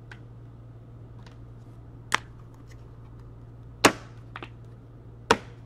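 Three sharp clicks about a second and a half apart, with a few fainter taps, from trading cards and a rigid plastic card holder being handled and set down on a table. A low steady hum runs underneath.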